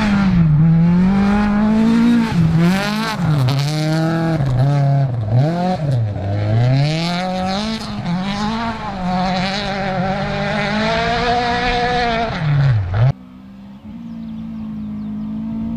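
Rally car engines at full throttle, the pitch climbing and dropping again and again as the drivers shift and lift. About 13 seconds in the sound cuts off suddenly, and a quieter, steadier engine note grows louder as another car approaches.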